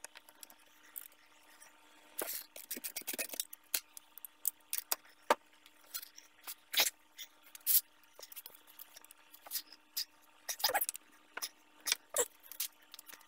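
Socket wrench on a 10 mm Allen socket clicking and clinking against metal in short irregular runs as the hub-to-knuckle bolts are worked loose.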